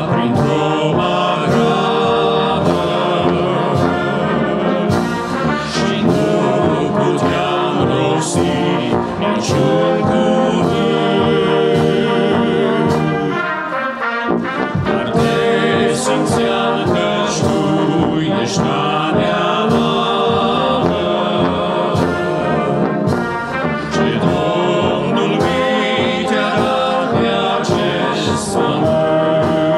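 Brass band of trumpets, trombones and tuba playing a hymn tune, with a short break between phrases about halfway through.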